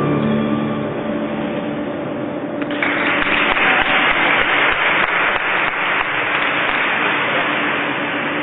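The program music dies away, then an arena audience breaks into applause about three seconds in.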